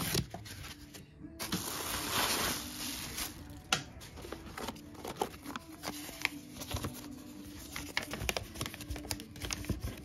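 Packing paper and plastic wrap rustling and crinkling as they are handled, with a denser rustle in the first few seconds, then scattered small clicks and taps.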